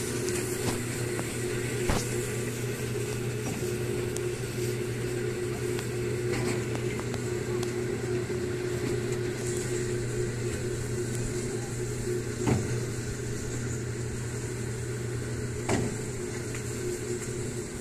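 Small ride car running along its guided track with a steady motor hum, with three short knocks as it goes.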